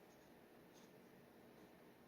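Near silence with a low hiss and two faint, short scratches of a steel G-nib dip pen drawing on paper.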